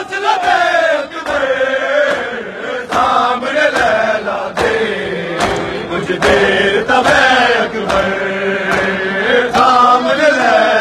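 A crowd of men chanting a Punjabi noha (Shia mourning lament) in unison. Through it come the sharp slaps of chest-beating (matam), landing in rhythm a little more than once a second.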